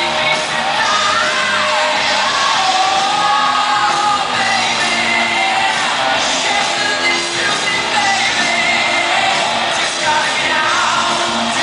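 Recorded pop-rock song with singing, played loud over a hall's sound system, with shouts and whoops.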